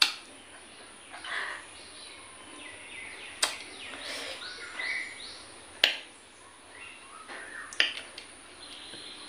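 Eating sounds: four sharp mouth clicks or crunches spread over several seconds, with faint soft chewing noises between them.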